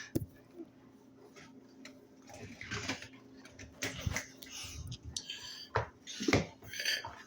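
Scattered clinks and scrapes of a utensil against a bowl, as of stirring a thick mixture, over a faint steady hum.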